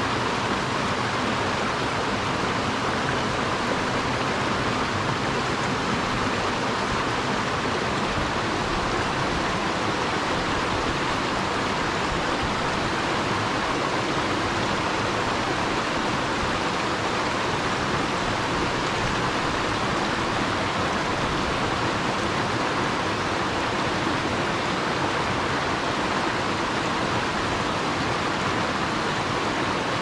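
Mountain stream rushing over a small cascade between boulders: a steady, even rush of water with no breaks.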